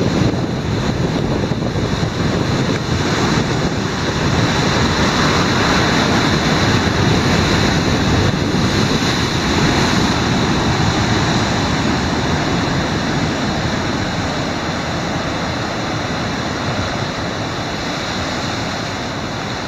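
Heavy ocean surf churning and breaking against rocky cliffs: a continuous rush of white water that swells a few seconds in and eases slightly toward the end.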